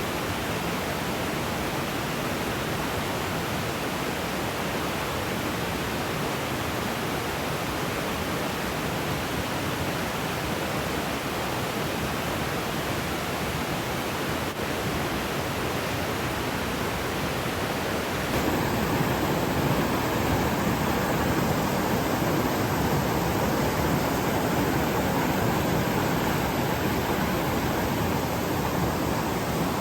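Valley stream rushing over rocks, a steady wash of water noise that grows a little louder about eighteen seconds in.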